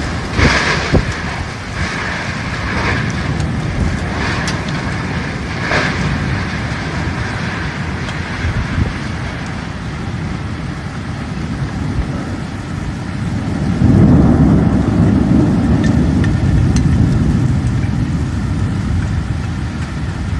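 Storm wind blowing hard, with rain, in a steady noisy rush. It grows louder and deeper about fourteen seconds in.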